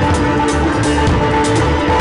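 Live instrumental Pakistani–Western fusion music: drum kit with cymbal strokes, tabla, sitar and keyboard playing together, with held notes over a steady beat.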